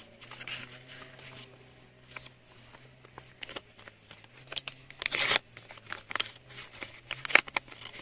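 Paper rustling and crinkling as a folded paper surprise packet is opened and unfolded by hand, in short uneven rustles with one louder, longer rustle about five seconds in.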